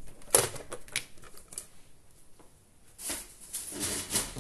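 Craft materials being handled on a tabletop during papercraft work: a few sharp clicks and taps in the first second or so, then rustling about three seconds in.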